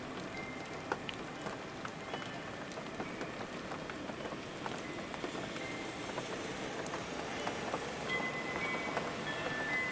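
Steady rain falling, with individual drops ticking throughout. A few short ringing, chime-like tones come in near the end.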